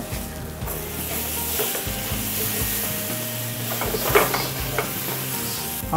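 Chicken pieces sizzling in a pan of hot mustard oil and masala sauce while a spatula stirs them, scraping against the pan a few times. The strongest scrape comes about four seconds in.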